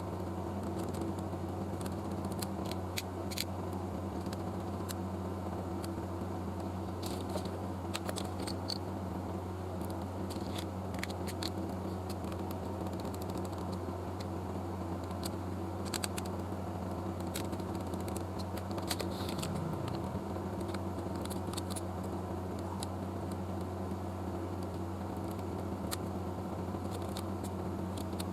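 A steady low mechanical hum, like a small fan or bench machine, with scattered light clicks and taps throughout.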